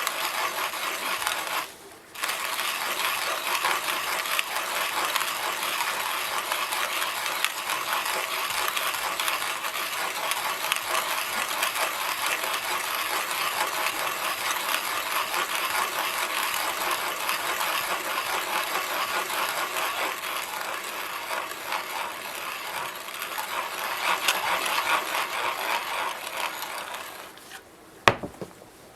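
Zassenhaus Brasilia hand coffee grinder, its conical burrs crushing coffee beans as the crank is turned: a continuous fine crunching and grating, with a short break about two seconds in. The grinding stops near the end, followed by one sharp click.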